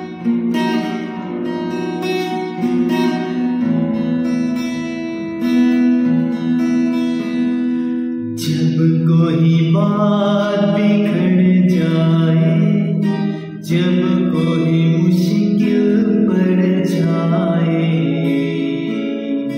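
Acoustic guitar being strummed and picked, with a man's singing voice joining in over it about eight seconds in.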